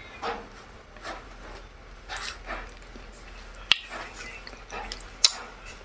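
Close-miked mouth sounds of a person eating: soft chewing and smacking at irregular moments, with two sharp clicks in the second half.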